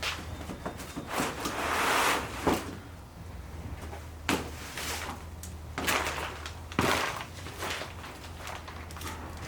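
Hands-on workshop handling: a scraping, sliding sound about a second in, then several separate knocks and clunks, over a steady low hum.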